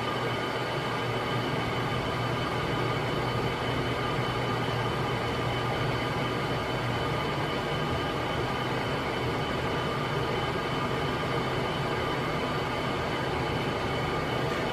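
Casablanca Panama ceiling fan with four blades running steadily at its top (sixth) speed: an even motor hum under a rush of moving air.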